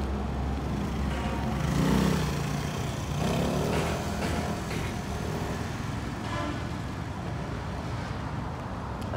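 Road traffic going by over a steady low rumble, with vehicles passing, one louder about two seconds in and another around four seconds.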